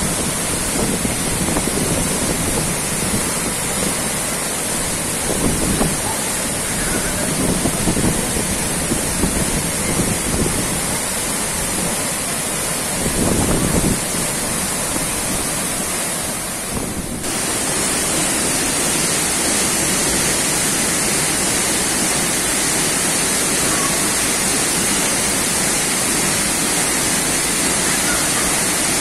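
Waterfall pouring into a rock-walled plunge pool: a steady, loud rush of falling water. In the first half there are a few irregular louder low surges.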